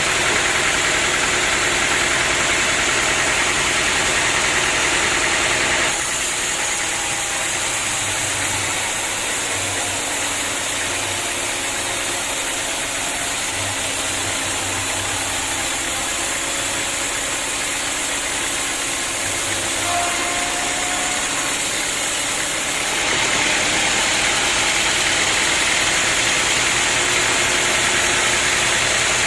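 Sawmill machinery running steadily, with an engine and saw making a loud, constant noise. It turns abruptly quieter and duller about six seconds in, then returns just as abruptly about three-quarters of the way through.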